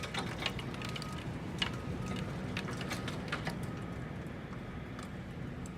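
Hail striking double-pane glass windows: irregular sharp ticks and taps over a steady low rush of the storm. A faint tone beeps on and off in the background.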